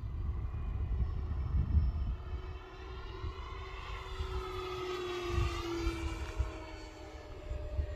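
Electric radio-control model airplane flying past, its motor tone dropping slightly in pitch as it goes by, with wind gusting on the microphone.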